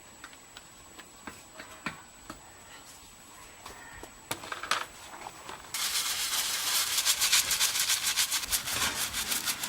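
A few faint clicks and taps, then about six seconds in a sudden start of loud, fast hand rubbing strokes, several a second, on the minibike's parts.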